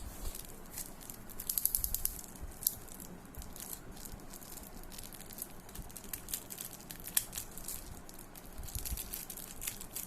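Packaging crinkling and tearing as a parcel is opened by hand: a run of irregular sharp crackles, loudest about a second and a half in.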